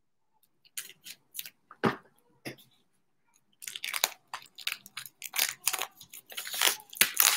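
Clear plastic wrap being picked at and pulled off a book, crinkling and crackling. At first it gives a few separate crackles, then from about halfway through a dense run of crackling that grows louder toward the end.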